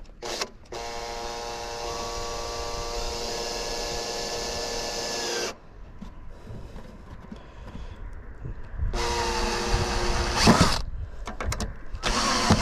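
Cordless drill-driver running to drive a screw into a wooden roof-ridge batten: one steady whine of about five seconds, then shorter runs about nine and twelve seconds in.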